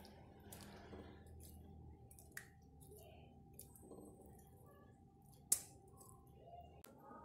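Kitchen tongs moving fried eggplant pieces into a steel pot of sauce: faint soft squishes and small clicks, with a sharp click near two and a half seconds and a louder, ringing clink of the tongs against the pot about five and a half seconds in.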